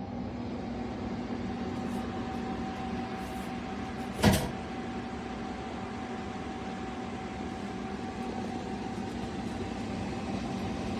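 Portable spot air conditioner running: a steady rush of fan air with a low motor hum and a held tone. One sharp knock about four seconds in.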